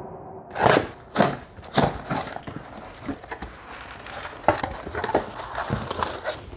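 A mail package being opened by hand, crinkling and rustling: three loud bursts in the first two seconds, then lighter scattered rustles and clicks.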